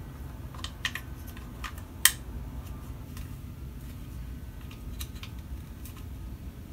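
Scattered light clicks and taps of small plastic parts being handled as a hex nut is screwed down onto a potentiometer in a plastic control-panel box, with one sharper click about two seconds in.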